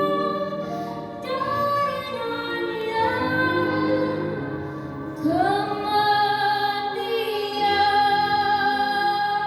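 A woman singing melodic phrases with vibrato, the last note held for about four seconds.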